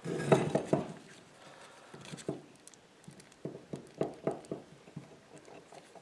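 Light metallic clicks and knocks from handling a brake caliper slide pin in its bracket, the pin cleaned and freshly lubricated so it slides freely. A quick cluster of clicks at the start, then more scattered ones in the middle.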